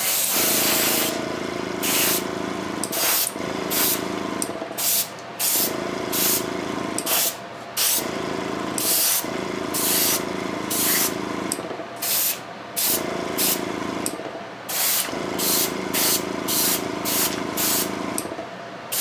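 Airbrush spraying a gray base coat onto a plastic model in short hissing bursts, about one a second, as the trigger is pressed and released. A steady hum runs underneath.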